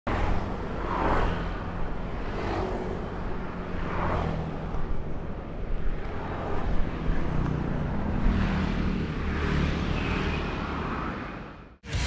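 Yamaha YZ250 supermoto's single-cylinder two-stroke engine idling steadily, while a few vehicles pass by on the road, each swelling and fading. The sound cuts off just before the end.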